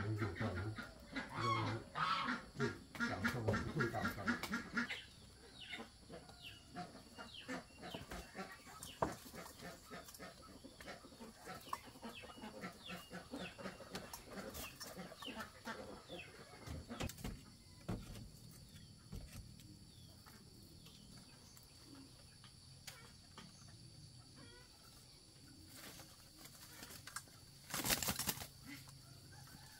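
Chickens clucking and birds chirping, louder calling in the first few seconds, then many small clicks and short chirps, with a brief loud rustle near the end.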